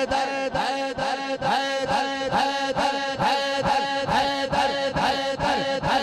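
Crowd of men chanting in unison, in a fast even rhythm of about two chants a second.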